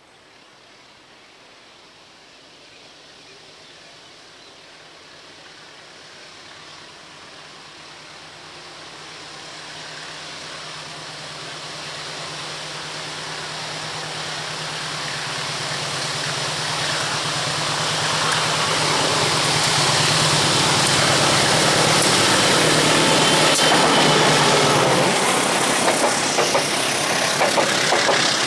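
A train approaches, its steady low engine hum and rail noise growing steadily louder for about twenty seconds. Near the end the engine tone drops away and the noise takes on a rapid, uneven rhythmic clatter as the train passes close by.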